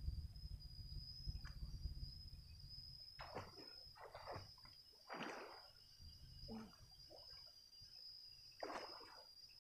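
Faint splashing and sloshing of river water as a person swims, in a few separate short swishes, with a steady high-pitched whine throughout.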